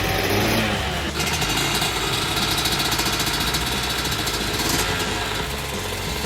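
2004 Honda CR125's 125 cc two-stroke single-cylinder engine running, its revs rising and falling.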